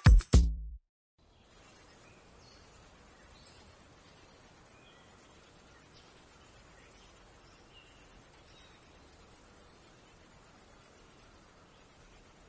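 Music cuts off about half a second in. Then a cricket chirps in a high, rapidly pulsing trill, in runs of a few seconds broken by brief pauses.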